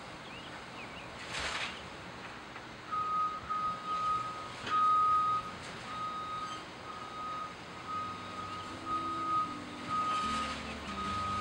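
Reversing alarm on demolition machinery beeping steadily, about one and a half beeps a second, starting a few seconds in, after two short bursts of noise. Music fades in near the end.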